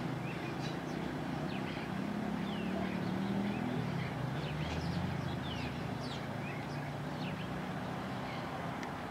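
Small birds chirping, many short high notes and quick descending chirps scattered throughout, over a steady low rumble of road traffic.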